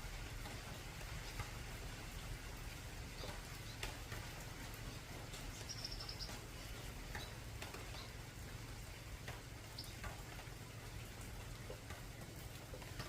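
Rain falling on an old corrugated zinc roof: a steady patter with individual drops ticking on the metal. A brief high chirp about six seconds in.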